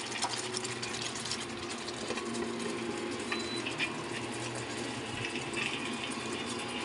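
Tomato-based stew sauce simmering in a pan: a steady bubbling crackle of many small pops, with a low steady hum underneath.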